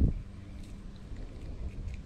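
A dull low thump on the microphone right at the start, then a faint low rumble.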